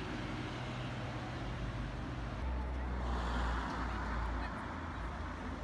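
Street traffic with a steady low rumble; a car drives past close by, its sound swelling and fading again around three to four and a half seconds in.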